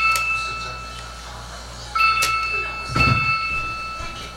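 Phone-like ringing from a television: a ringing tone that starts sharply and fades, twice in quick succession about a second apart. A couple of sharp clicks and a low thump come in between.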